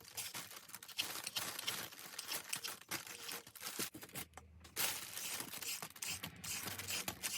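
Handheld vegetable peeler scraping the skin off carrots and pears in many short, irregular rasping strokes.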